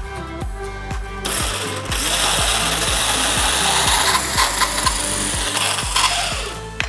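Red electric food processor grating apple pieces: the motor runs loud and noisy as the apple is pressed through. It starts about a second in and stops just before the end. Background music with a steady beat plays underneath.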